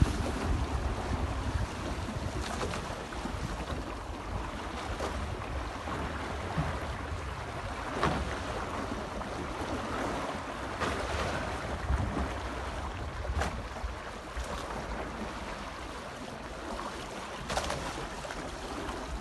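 Water rushing along the hulls of a Libertist 703 trimaran sailing in light wind, with wind buffeting the microphone. A few short knocks come through on top.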